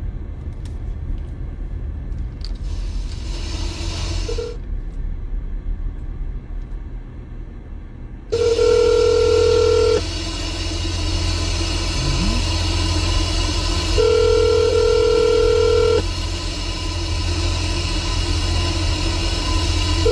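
Telephone ringback tone over speakerphone: the called phone is ringing and not yet answered. The tone sounds twice in two-second rings with about four seconds between them, starting about eight seconds in. A steady low car-cabin rumble runs underneath.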